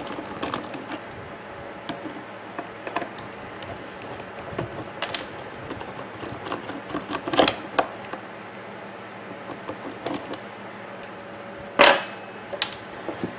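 Screws being taken out of a coffee maker's heating-element bracket with a screwdriver: scattered small clicks and scrapes of the tool and the plastic housing, with one louder sharp clink near the end.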